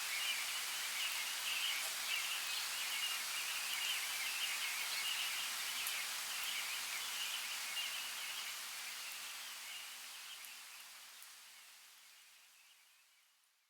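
Forest ambience of light rain: a steady soft hiss with scattered drip ticks and a continuous high chirping chorus, fading out over the last few seconds.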